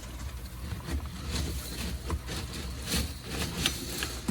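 Pressure cleaner nozzle spraying water inside a food-waste bioreactor tank, working through the biochips to clear a clogged drain screen. It is an uneven rushing spray over a steady low rumble, broken by irregular knocks.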